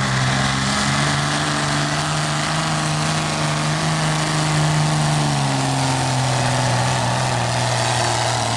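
Dodge Ram's Cummins diesel inline-six held at high revs under full load, pulling a sled down a dirt track. The pitch climbs a little about a second in, holds, then sags gradually through the second half as the sled bears down on the engine.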